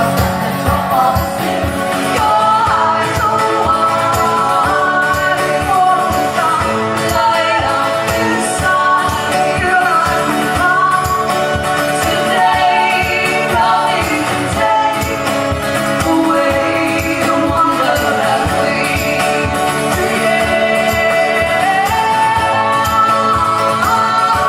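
Live acoustic pop-folk song: a steady strummed rhythm under a sung melody.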